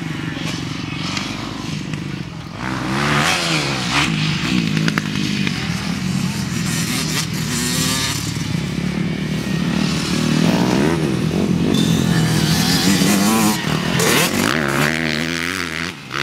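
Small dirt bike engine riding on a dirt track, its pitch rising and falling again and again as the throttle opens and closes through the turns and jumps.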